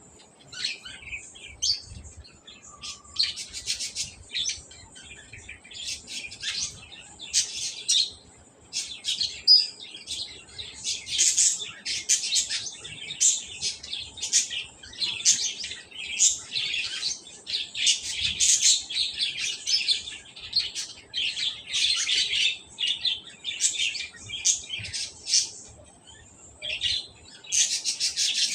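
Birds chirping: many short, high calls in quick, busy runs, with a brief lull a little before the end.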